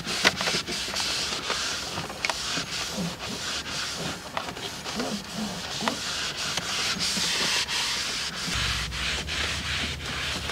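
Repeated rubbing and scrubbing strokes on a surface, from hand detailing work, over a steady hiss. A low steady hum joins about eight and a half seconds in.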